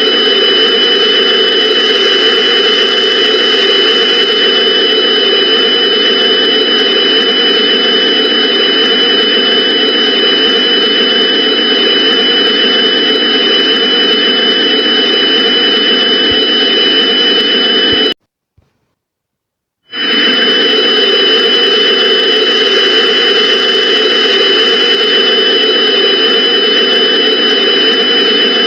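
Loud emergency-alert-style background drone: a steady rushing noise with two high tones held on top. About 18 seconds in it cuts off abruptly, falls silent for about two seconds apart from a faint click, then comes back at the same level.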